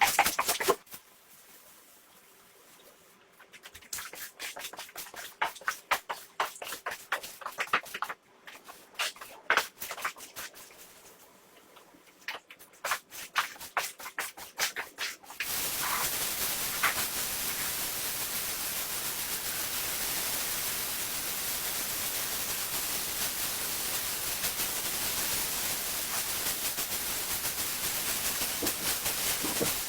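Irregular scraping and cracking strokes as a hardened dirt crust is worked off a carpet, with short pauses between bursts. About halfway through, a loud steady hissing rush of a cleaning machine starts and keeps going.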